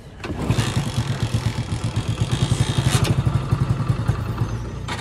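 Motorcycle engine catching about a quarter second in and running with a rapid, even firing beat, loudest in the middle and easing off near the end.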